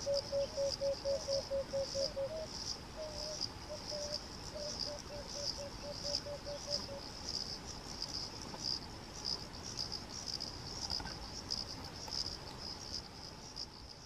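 Emerald-spotted wood dove singing: runs of short, low coos that come faster and closer together, twice, the second run ending about seven seconds in. Behind it, and louder, insects chirr in a steady high pulsing trill.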